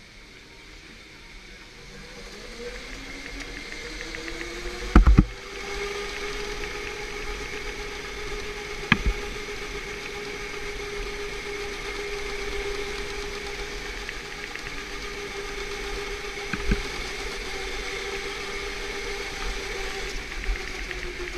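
Electric go-kart motor whining as the kart accelerates, its pitch rising over the first few seconds and then holding steady at speed. A few sharp knocks break in, the loudest a double knock about five seconds in, then single ones around nine and seventeen seconds.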